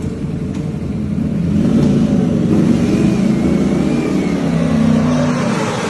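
Race superbike engines running and being revved, swelling about one and a half seconds in as a bike pulls away.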